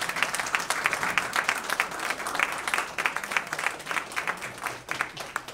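An audience applauding: dense, steady clapping that begins to thin out near the end.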